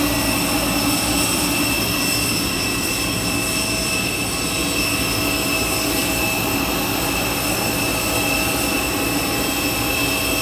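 Steady whine of a jet airliner's turbine: several constant high tones over a rushing hiss, unchanging throughout.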